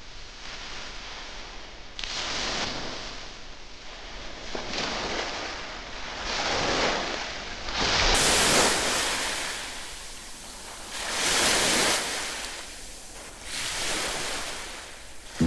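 Ocean surf: waves breaking and washing in, the noise swelling and fading every two to three seconds.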